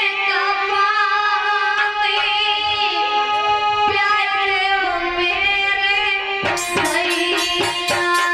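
A young woman sings a Hindi devotional bhajan into a microphone, her voice wavering with ornamented, sustained notes over a steady held accompanying note. About six and a half seconds in, rhythmic percussion strikes join.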